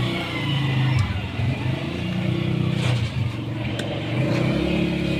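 A motor or engine running with a low hum that rises and falls in pitch, with a few faint clicks.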